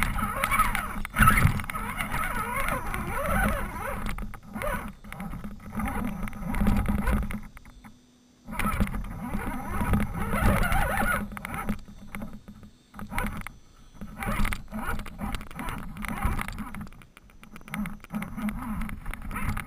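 Electric motor and gears of an RC rock crawler whirring in stop-start bursts as it climbs over sand, rocks and logs, with tyres and chassis scraping and knocking, heard up close from a camera on the truck. It stops for about half a second around eight seconds in.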